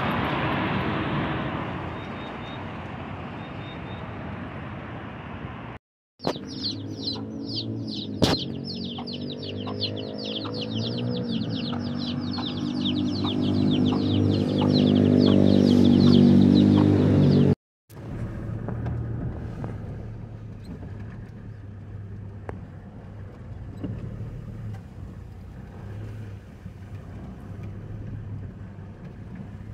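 A vehicle passing on the road, then a brood of chicks peeping rapidly and continuously over a low drone that grows louder, then the steady rumble of a car engine heard from inside the cabin on a dirt road.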